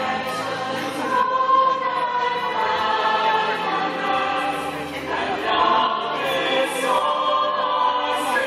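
Seventh-day Adventist church choir singing a gospel song, the voices holding long notes.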